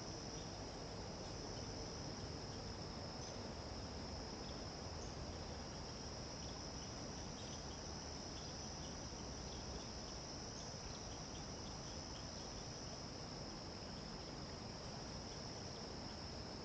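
Steady chorus of insects: one unbroken high-pitched trill, with faint scattered ticks over it.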